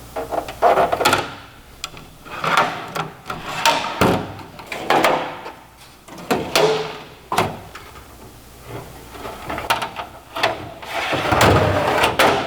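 Drawers of a Sears Craftsman steel toolbox sliding in and out on their slides, a series of about nine scraping strokes, some ending in a clunk with a brief metallic ring.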